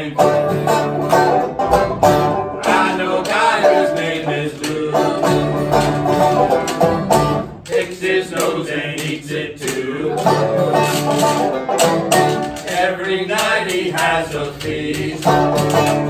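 Live acoustic jug-band music: acoustic guitar and banjo strumming an old-time tune, backed by a washboard and a washtub bass.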